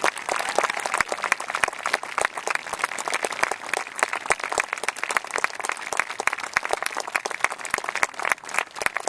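A small crowd of spectators applauding, many hands clapping at once without a break.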